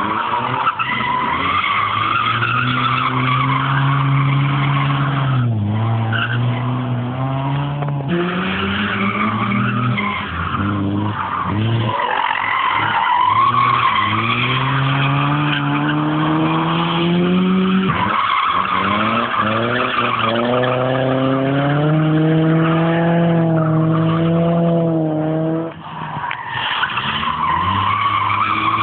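A car drifting: its engine revs in long climbing pulls, dropping back sharply a few times, over near-continuous tyre squeal.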